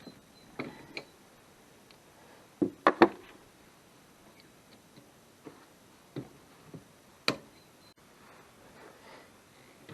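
Scattered clicks and knocks of hand tools and metal parts being handled, loudest a quick cluster of three knocks about three seconds in and a sharp click about seven seconds in.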